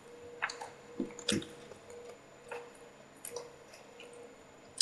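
Light scattered clicks and taps of tools on a circuit board as it is worked with a soldering iron and flush cutters, over a steady faint hum.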